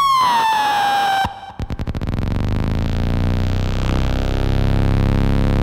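Harsh noise music: a high pitched squeal that sags slightly in pitch and breaks off about a second in, followed by a rapid stutter that builds into a dense, steady wall of distorted noise over a low drone.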